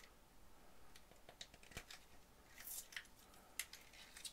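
Faint ticks and soft crackling swishes of protective plastic film being peeled off a red acrylic install template, with a few louder crackles about three seconds in.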